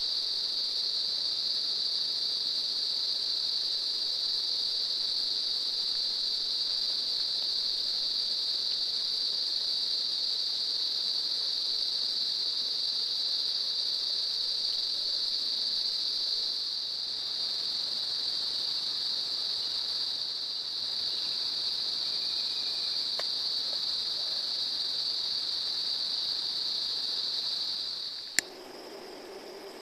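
A steady, unbroken high-pitched chorus of shrilling insects. Near the end a single sharp click, after which the shrill is fainter.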